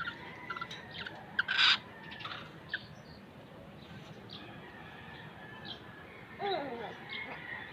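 Black-naped oriole calling: a loud, harsh rasping call about a second and a half in, scattered short chirps, and a couple of curving, downward-arching whistled notes near the end.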